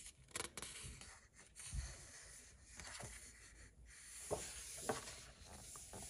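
A page of a paperback colouring book being turned by hand: faint paper rustling and scraping with a few soft ticks, then hands pressing the open pages flat.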